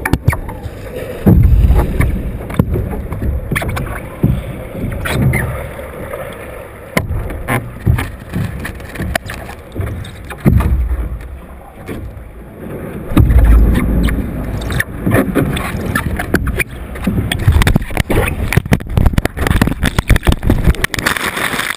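Muffled sloshing and gurgling of ice water with many knocks, clicks and rubbing against a GoPro's waterproof housing, heard through the housing as the camera is tumbled and handled in the water.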